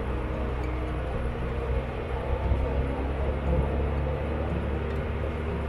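Engine of a homemade forestry forwarder running steadily with a low rumble.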